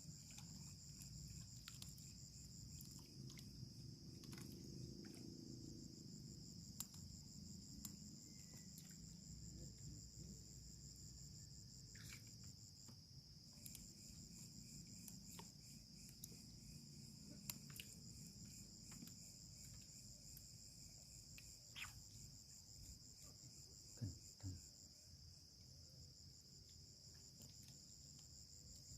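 Faint, steady chirring of insects in a continuous high band, over a low rumbling haze, with a few light clicks.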